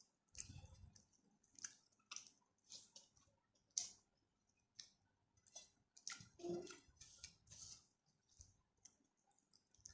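Close-miked chewing and wet mouth smacks of someone eating rice with spicy stir-fried chicken: soft, irregular clicks every half second or so, with a short low hum about six and a half seconds in.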